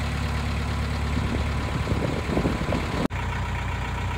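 A narrowboat's diesel engine running steadily under way, with wind and outdoor noise over it. The sound drops out sharply for an instant about three seconds in, then the engine carries on.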